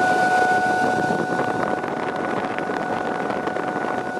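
Forced air blast whistling through the steel pipe fittings of a clay bloomery furnace's tuyeres during a smelt. It makes a steady whistle with an overtone over a rushing hiss of air, the whistle a little fainter in the second half.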